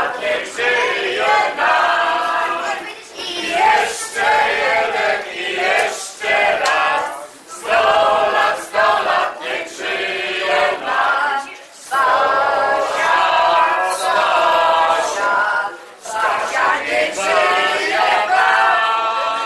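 A group of men and women singing a song together in chorus, in sustained phrases a few seconds long broken by short pauses, as a sung birthday toast.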